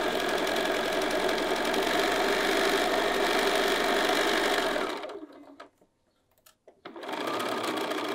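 Bernina electric sewing machine stitching a seam, running steadily for about five seconds, stopping, then starting up again about two seconds later.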